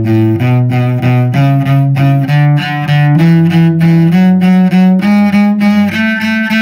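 Cello playing an ascending one-octave A major scale, A up to A, with each note bowed as three short detached strokes in a steady rhythm; the top A is held longer near the end.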